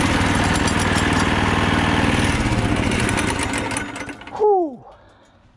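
Four Predator 212 single-cylinder four-stroke go-kart engines running together, then shut off and winding down about four seconds in. Just after, a brief loud whoop falls in pitch.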